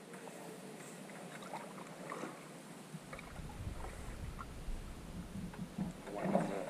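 Canoe paddling: the paddle dips and pulls through calm water with small splashes and drips, and a few light knocks. A louder splash comes near the end.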